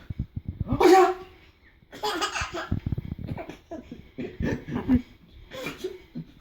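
A man sneezes loudly about a second in, then a baby laughs in repeated bursts of belly laughter.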